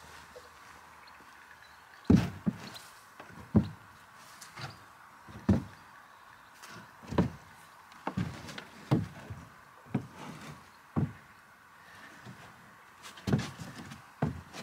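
Boots stepping into and treading about in a rigid black plastic preformed pond shell, giving a string of irregular dull thumps that start about two seconds in, the loudest near the start.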